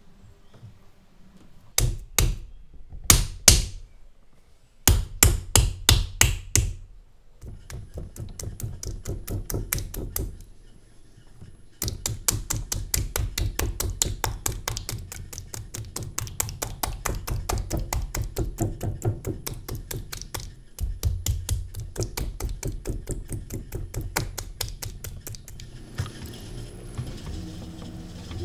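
Hands slapping and patting a ball of soft clay down onto a pottery wheel bat: a few heavy slaps, then a run of quicker ones, then steady rapid patting at several strikes a second as the clay is knocked toward centre. Near the end the patting stops and gives way to a soft steady wet rubbing as the clay turns under the hands.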